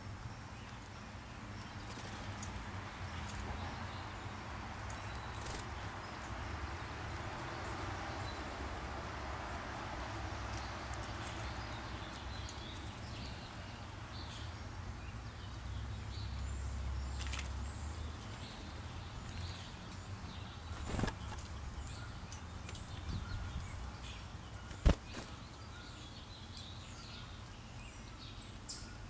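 Outdoor ambience: a steady low rumble and rushing noise, with scattered faint high chirps and a few sharp clicks. The loudest click comes about 25 seconds in.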